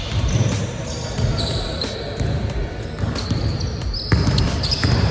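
A basketball being dribbled on a gym court, thudding irregularly, while sneakers squeak sharply several times as the players cut and shuffle.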